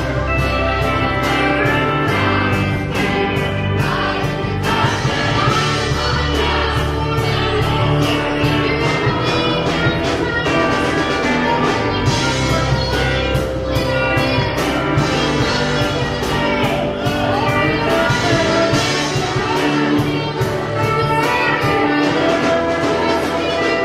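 Live gospel worship music: a choir singing over a full band, with a steady beat.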